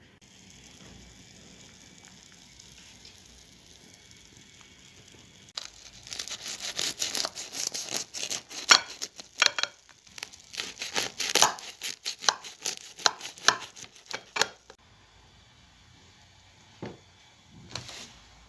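Knife cutting through a crisp baked yufka pastry in an aluminium foil tray: a rapid, uneven run of sharp crackles and crunches from the flaky layers, starting about five seconds in and lasting about nine seconds, followed by a couple of soft sounds near the end.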